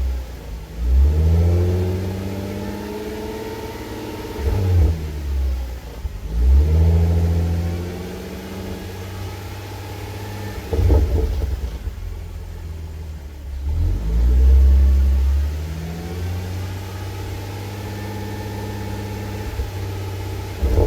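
Supercharged 3.0-litre V6 of an Audi S4 through a 2.5-inch HG Motorsport catback exhaust with stock cats, revving up and easing off several times as the car is driven. Pitch climbs and then falls away with a low rumble, and about eleven seconds in there is a brief burst of crackles: the unforced burbles of this exhaust on lift-off.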